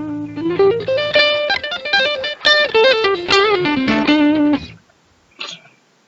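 Guitar playing a quick melody over a held low note, heard through a video-chat connection; it stops about three-quarters of the way through, and a brief noise follows about a second later.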